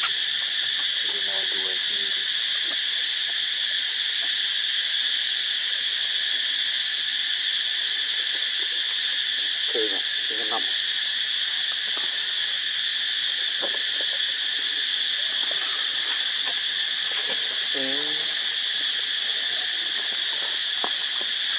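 Steady, unbroken insect chorus of high-pitched droning, with a few short pitched calls breaking in now and then.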